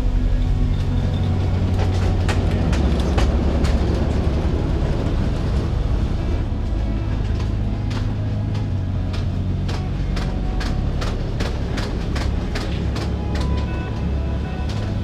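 Steady low drone of a C-130 Hercules's four turboprop engines heard from inside the cargo hold, with sharp rattles and clicks scattered throughout, thickest in the second half.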